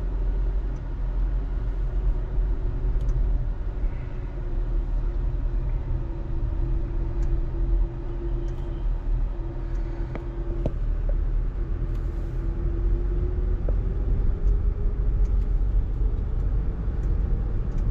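Car driving along: a steady low rumble of engine and road noise, with a humming drone that drifts slightly in pitch.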